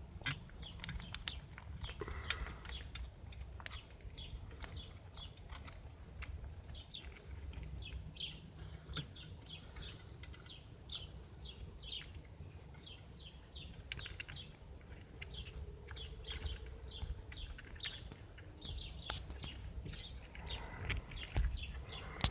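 Scattered small clicks and ticks of hands working the horn wire connectors behind a car's steering wheel, over a low steady hum.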